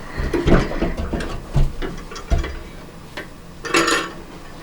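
Old drop-in bathroom sink basin knocking and clinking against the countertop and faucet fittings as it is lifted out, several hard knocks in the first couple of seconds, then a brief rustle near the end.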